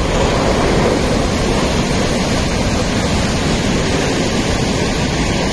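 Loud, steady rushing of water, an even noise with no breaks.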